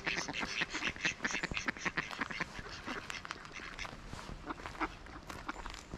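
A group of mallard ducks quacking, a dense run of short quacks that thins out over the last few seconds.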